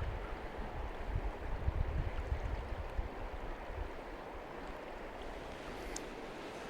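Steady rush of a flowing river, with low rumbling on the microphone for the first few seconds.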